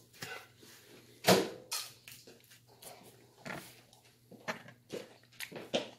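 People eating pizza: irregular smacks, clicks and handling noises, with one louder knock about a second in.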